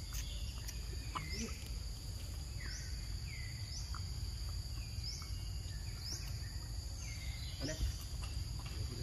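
Outdoor nature ambience: a steady high drone of insects, with a short rising chirp repeating about once a second and lower falling calls, over a low rumble. A few faint clicks and knocks.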